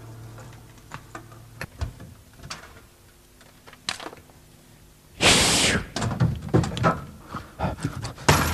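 A few scattered faint knocks and thuds, then about five seconds in a sudden loud crash followed by a run of irregular clattering and banging, like objects knocked about on a stage.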